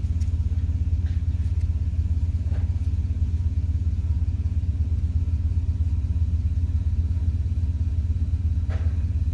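Van engine idling steadily while stopped, heard from inside the cab as an even low hum.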